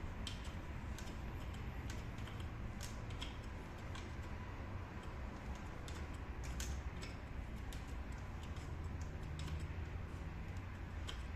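Light, irregular clicks and taps, roughly one or two a second, over a steady low rumble.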